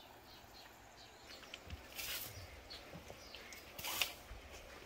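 Quiet outdoor ambience with faint, short high-pitched chirps, broken by two brief noisy bursts about two and four seconds in.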